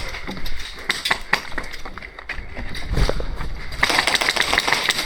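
Irregular sharp clicks and clinks over background noise, growing denser and brighter about four seconds in.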